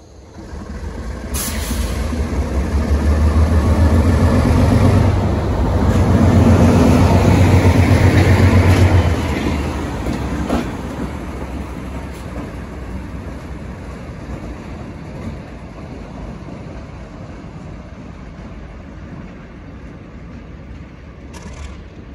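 Alco FPA diesel locomotive's engine throttling up, a deep pulsing rumble as it pulls away running light. It is loudest in the first half, then fades steadily as the locomotive draws off.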